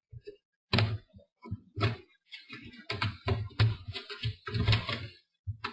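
A small screwdriver turning a tight screw out of a laptop's metal screen bracket: irregular clicks and knocks, a few a second, coming closer together in the middle.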